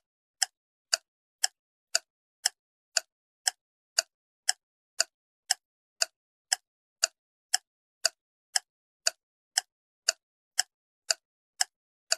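Clock-tick sound effect ticking evenly about twice a second, the timer while the picture puzzle is up for guessing.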